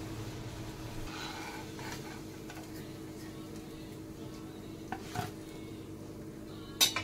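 Koftas sizzling faintly in hot oil in a kadhai while a metal spatula lifts them out, with light scrapes and clicks of the spatula against the pan and one sharp metal clink near the end. A steady low hum runs underneath.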